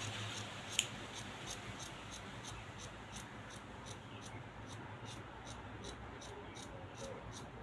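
Scissors cutting through layered fabric: faint, even snips about three a second, with one sharp click about a second in.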